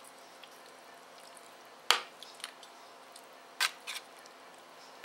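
A spoon stirring thick soup in a large metal stockpot: wet stirring with three sharp clinks of the spoon against the pot, the loudest about two seconds in and two close together near the end.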